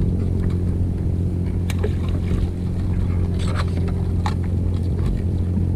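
Steady low drone of a boat motor running, with a few short clicks and rattles as a wire crab hoop net is handled.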